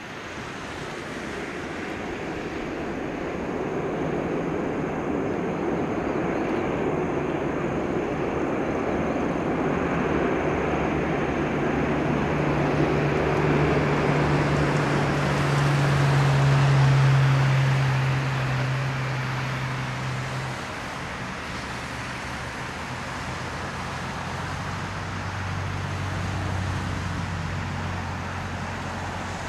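Boeing 747-400 freighter's four jet engines running as it rolls along the runway after landing, growing louder as it nears to peak a little past the middle, then easing off with a low hum that drops in pitch near the end.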